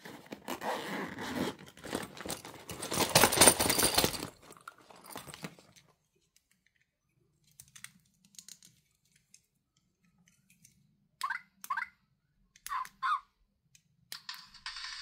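Crinkling and rustling of a shiny plastic zipper pouch and wrappers being handled, loudest about three seconds in. After that come faint clicks of a hard plastic toy figure being turned over, then four short squeaks in two pairs.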